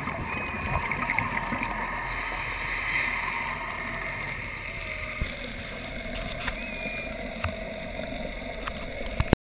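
Underwater sound on a scuba dive: a steady rush of water with the diver's regulator bubbles swelling about three seconds in. Scattered sharp clicks and a few faint short gliding tones sit over it.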